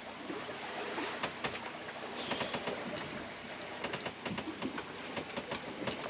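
Small sailboat under way in calm water: a steady hiss of water along the hull with many irregular light clicks and knocks.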